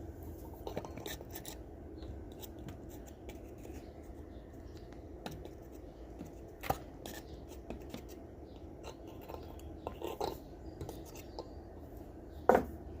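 Light metal clicks and scraping from a rusted Clipper belt lacer being handled and worked, with a few sharper clacks, the loudest near the end.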